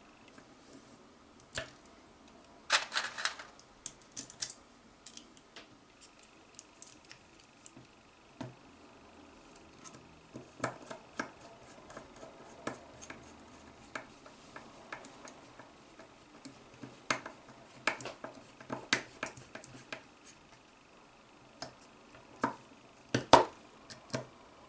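Small scattered clicks and light metallic clatter of M4 screws and the blue aluminium robot frame being handled and driven in with a hand screwdriver, with a short rattle about three seconds in and sharper clicks near the end.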